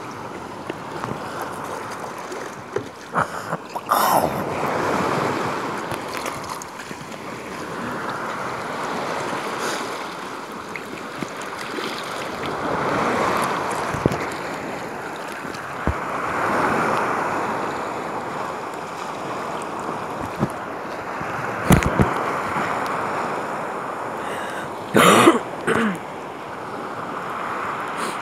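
Sea water sloshing and splashing around a sea kayak as it is paddled, the wash swelling and fading every few seconds, with wind on the microphone. A few sharp knocks cut through, the loudest about 22 and 25 seconds in.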